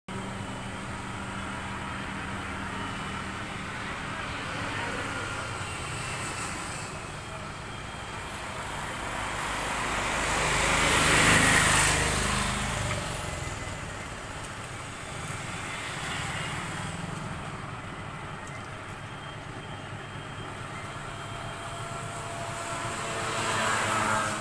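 Road traffic noise, with a vehicle passing close by about halfway through, swelling and then fading, and another approaching near the end.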